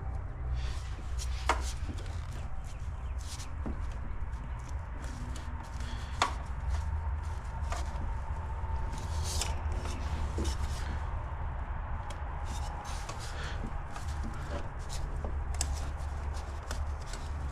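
Hands working intercooler pipes and clamps into a car's engine bay: repeated scraping and rubbing, with two sharp clicks of metal, about 1.5 and 6 seconds in. A steady low hum runs underneath.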